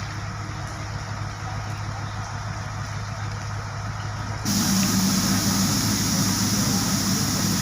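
Heavy truck diesel engine running steadily at a concrete pour. Just past the middle, a loud hiss starts suddenly, lasts about three seconds, and cuts off abruptly.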